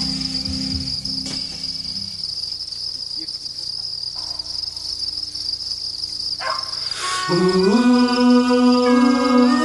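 Crickets chirping in a steady high trill, a recorded sound effect. Near the start a low held tone fades away, and about seven seconds in organ chords come in as a song's intro begins over the crickets.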